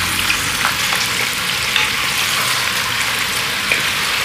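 Chicken pieces frying in desi ghee in a karahi, a steady sizzle as the chicken is browned, with a few faint scraping ticks of stirring.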